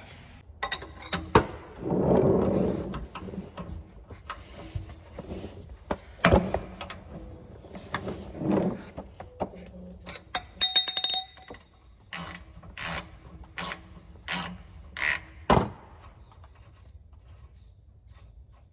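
Metal tools clinking and being handled, then a ratchet and socket working the rear differential's 24 mm fill plug loose: a burst of fast clicking, then about six regular strokes.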